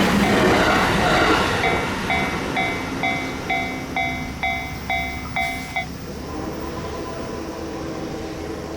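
A passing train's rumble fading away over the first second or two, while a Japanese level crossing's electronic warning bell rings about twice a second and stops about six seconds in.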